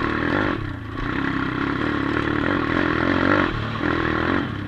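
Four-stroke single-cylinder 140cc pitbike engine running under throttle while being ridden on a dirt track, eased off briefly about a second in and again after about three and a half seconds.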